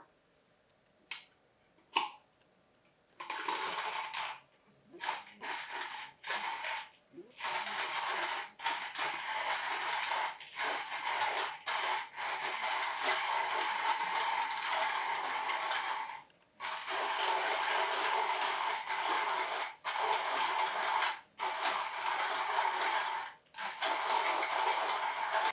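Comandante C60 Baracuda hand grinder crushing whole coffee beans as its crank is turned: a dense, gritty crunching that starts about three seconds in and goes on with brief pauses every few seconds. Two sharp clicks come just before it.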